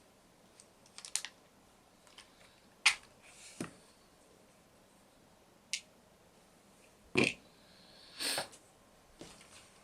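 Scattered sharp clicks and small clatters of small plastic and metal parts and tools being handled while a radio-controlled model car's chassis is worked on by hand. There are about eight separate knocks at uneven gaps, with a brief scraping rustle a little after eight seconds in.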